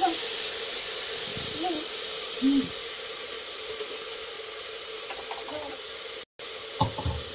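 Onion sizzling steadily in hot oil in a cooking pot as it softens.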